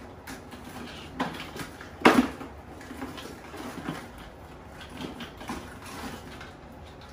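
Metal kitchen tongs clacking and knocking against a plastic cooler and a stockpot as crabs are picked out and moved. A string of irregular knocks and clatters, the loudest about two seconds in.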